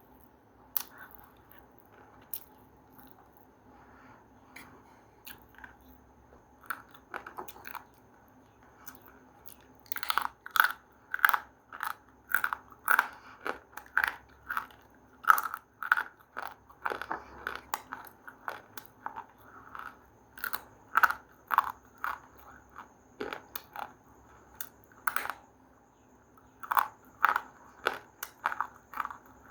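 Close-miked crunching and chewing of something hard and crunchy. A few scattered crunches come first, then from about ten seconds in a steady run of loud crunches, two to three a second, with brief pauses.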